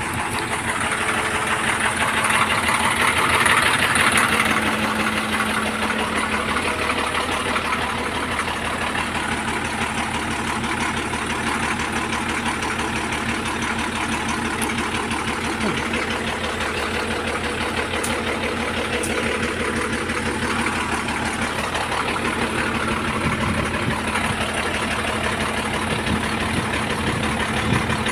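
Heavy-equipment diesel engine running steadily at idle, a little louder a couple of seconds in.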